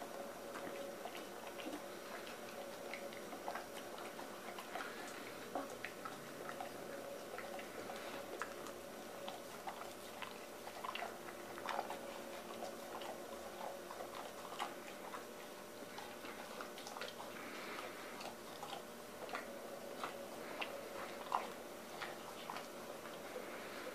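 Dog licking and eating from a stainless steel bowl: irregular small clicks and wet smacks as its tongue and teeth work against the metal, over a faint steady hum.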